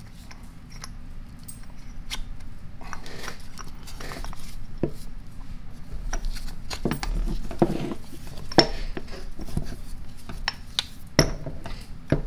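Scattered metal clicks, scrapes and knocks of an Ingersoll-Rand 2131 air impact wrench's rotor housing being worked and pressed into its body, with a few sharper knocks in the second half.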